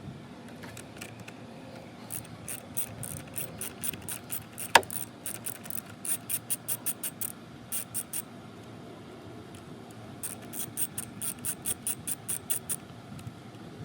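Ratchet wrench with an 8 mm socket clicking in several quick runs of about five clicks a second as bolts are turned. About five seconds in there is one loud, short squeak that drops sharply in pitch.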